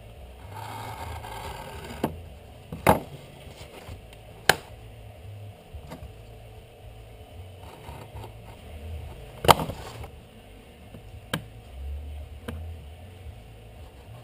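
A utility knife scraping as it cuts along a steel ruler, followed by several sharp knocks and clicks of the ruler and knife handled and set down on a wooden workbench.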